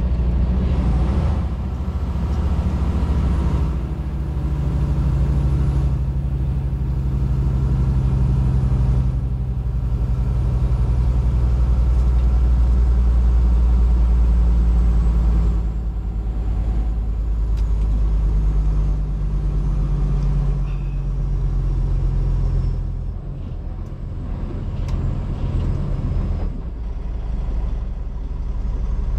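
Heavy-haul semi truck's diesel engine running under load, with a low, steady note whose pitch steps up and down several times. It eases off and grows quieter a little past two-thirds of the way through, then picks up again near the end.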